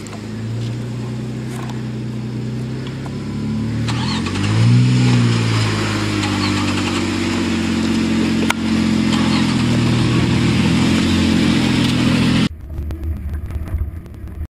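Jeep Wrangler engine pulling a slow crawl up slickrock. Its pitch rises in a rev about four to five seconds in, then settles back to a steady pull. About two seconds before the end the sound cuts off abruptly to a quieter, lower engine rumble.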